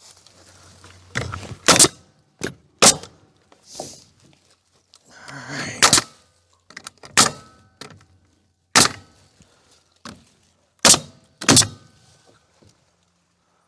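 Nails being driven one at a time into a wooden trim board: about ten sharp cracks, each with a short ring, irregularly spaced about a second or two apart.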